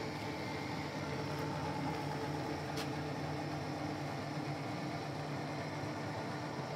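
Kearney & Trecker milling machine running steadily: a constant hum with several steady tones, and a faint click just under three seconds in.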